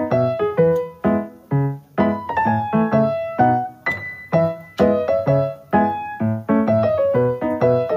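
Background piano music: keyboard chords struck in an even, steady rhythm, with a brief hiss about halfway through.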